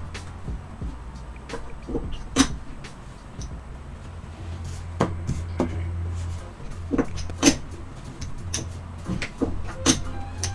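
Clay casino chips clicking against each other and tapping on the felt table as winning bets are paid out: a scattering of sharp clicks about every second, over a low steady hum.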